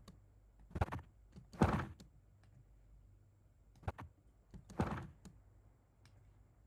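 Sleeve-swish sound effect made of two stacked copies, played back twice. Each time a sharp snap is followed about a second later by a cloth whoosh.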